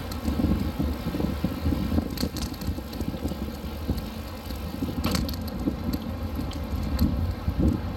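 Bicycle riding over brick paving, heard through the phone camera's microphone as a fluctuating low rumble of wind buffeting and tyre noise, with a few sharp rattles or clicks from the bike, the sharpest about five seconds in.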